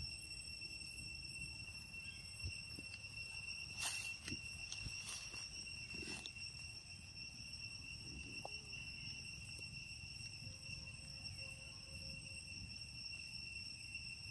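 Faint, steady high-pitched drone of forest insects, with a few short clicks or rustles about four to six seconds in.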